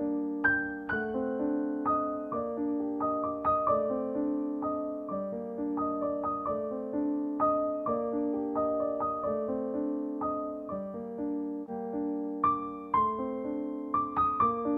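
Background piano music: a steady melody of separate struck notes, about two a second, over held lower notes.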